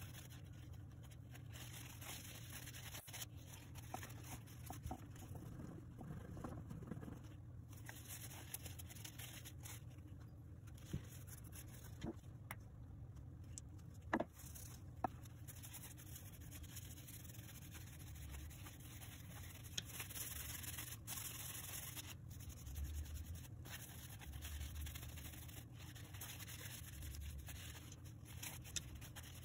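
Paper towel rubbing and polishing small brass screwdriver parts by hand: faint scraping and rubbing. There are a few sharp clicks of the small metal pieces around the middle.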